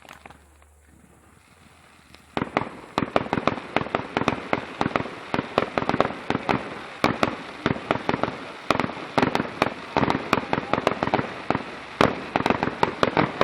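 Fireworks display: after a couple of seconds of quiet, a fast, unbroken run of sharp bangs and crackles starts, several a second.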